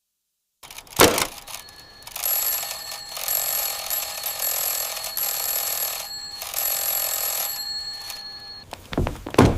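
A thump, then a bell ringing in three bursts like an alarm clock's bell, the middle burst the longest, with a few more thumps near the end.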